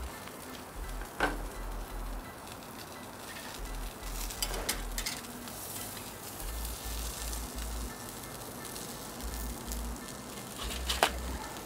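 Steak sizzling on the hot GrillGrate grates of a kamado grill, with a few sharp clicks and knocks of a spatula on metal as it is lifted off into an aluminium tray.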